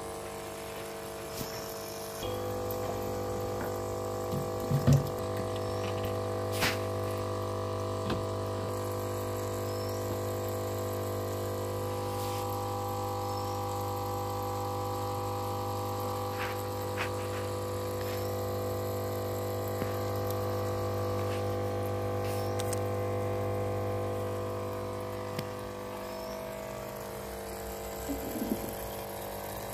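Aquarium filter pump running with a steady electric hum over bubbling water. The hum starts about two seconds in and fades out a few seconds before the end, with a few light knocks, the loudest about five seconds in.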